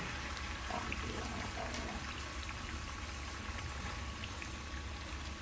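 Cut potatoes frying in hot oil in a pan: a steady sizzle with scattered small pops and crackles.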